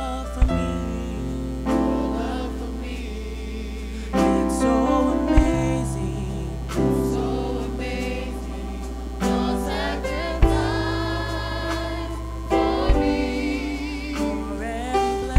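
Gospel choir singing a slow song in harmony over sustained instrumental chords and a steady bass, with a few sharp percussive hits.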